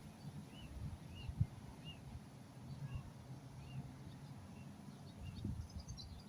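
A bird calling outdoors with a short, arched chirp repeated roughly every half second to a second, over a low rumble and a few soft knocks; a faster high twitter joins near the end.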